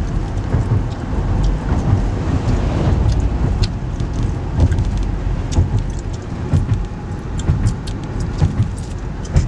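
Road noise inside a moving car: a steady low rumble of tyres and wind, with occasional short clicks and rattles.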